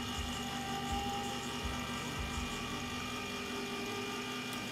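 Electric can opener running, a steady motor hum as it cuts around a can.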